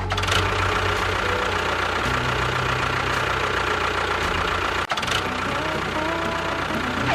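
An engine running steadily at idle-like speed, with a brief break a little under five seconds in.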